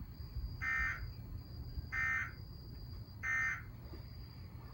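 Emergency Alert System end-of-message data bursts from a TV speaker: three short buzzy screeches about a second and a third apart. They mark the end of the tornado warning broadcast.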